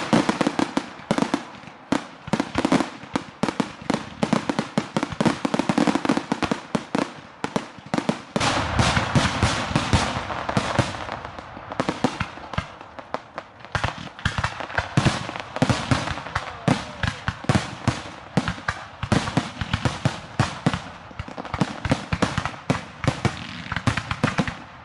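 Fireworks going off in a rapid, continuous barrage of crackles and bangs, many sharp cracks a second over a fizzing hiss.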